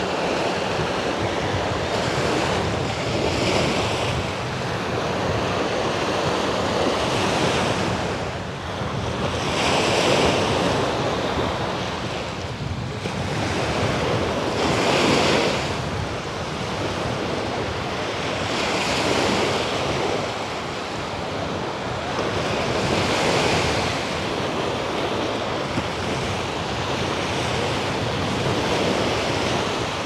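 Black Sea surf breaking on a sandy beach, a wave washing in every few seconds, with wind buffeting the microphone.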